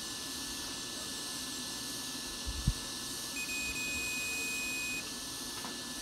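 Digital multimeter's continuity buzzer giving one steady high beep lasting about a second and a half past the middle, the sign of a closed circuit between its test probes. Just before the beep there is a single short thump.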